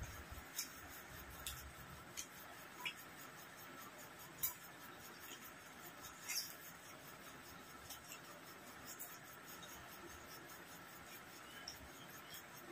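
Faint sounds of eating rice by hand: fingers rubbing and scraping across plastic plates, with scattered short clicks and smacks of chewing.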